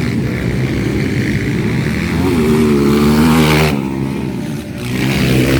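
200 cc motocross bike engines revving hard. One engine climbs in pitch about two seconds in, drops off sharply a little before four seconds, then climbs again.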